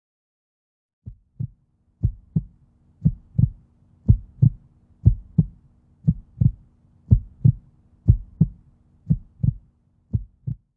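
Heartbeat sound effect: paired lub-dub thumps about once a second over a faint low drone, starting about a second in.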